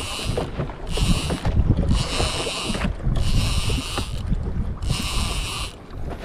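Fishing reel whirring in repeated short spurts, about once a second, over a low rumble of wind and water against a small boat.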